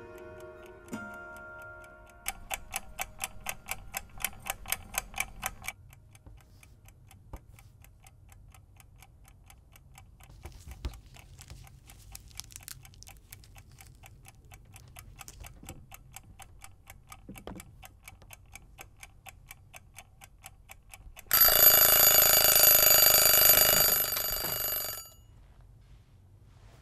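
A clock ticking steadily: quick and loud for a few seconds, then softer. It is followed by an alarm ringing loudly for about four seconds, then stopping abruptly.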